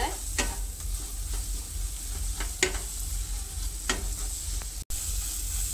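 Onion and spice masala sizzling in oil in a non-stick kadai while a spatula stirs and scrapes through it, with a few sharp taps of the spatula against the pan. The spices are being fried down (kasha) until they are cooked through.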